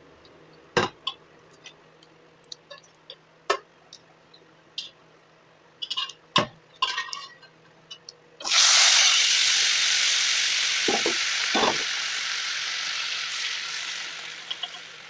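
Cumin seeds crackling in hot oil for a tempering, with scattered ticks and clinks. About eight seconds in, boiled chana dal goes into the hot oil and the pan sizzles loudly at once, fading slowly, with a couple of spoon knocks against the pan.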